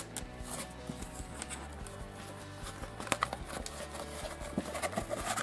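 Quiet background music, with soft crackling and taps of a rolled paper poster being handled and unrolled.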